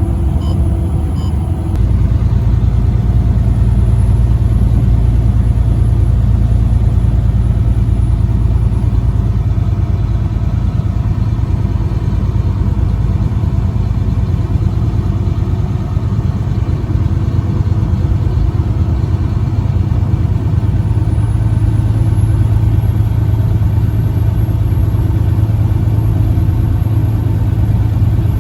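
Truck engine and road noise while driving: a steady low drone that gets louder about two seconds in and then holds steady.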